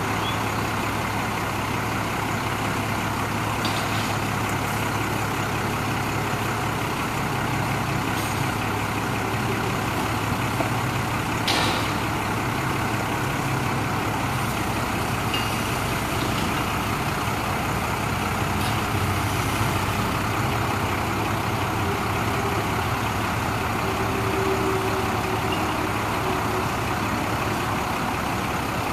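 Cummins 5.9-litre diesel engine of a Ford F800 bucket truck running at a steady speed while the aerial boom is worked, with a single sharp click a little before halfway.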